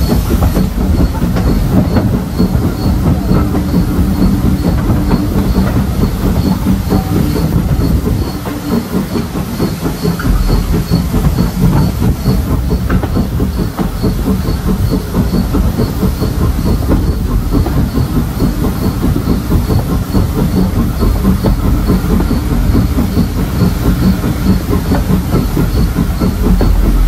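Heritage passenger train running along the line behind a small saddle-tank steam locomotive: carriage wheels rumbling and clicking over the rail joints, with steam hissing from the engine.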